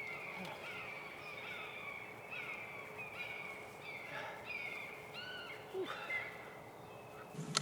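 A bird calling repeatedly: a run of short calls, each falling slightly in pitch, over a faint steady hum.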